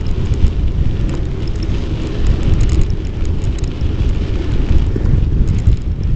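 Wind buffeting the microphone of a bike-mounted action camera while cycling, heard as a loud, uneven low rumble with a fainter hiss above it.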